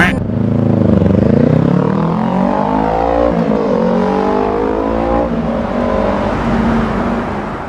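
Motorcycle engine revving: the pitch climbs and drops back twice, then holds steadier near the end.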